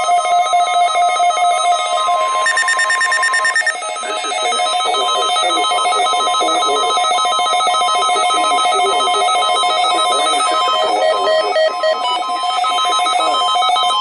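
Several Midland weather radios and two-way radios sounding their electronic alert tones at once, a layered mix of steady beeping tones. This signals reception of the NOAA Weather Radio weekly test. The tone pattern shifts briefly about three seconds in.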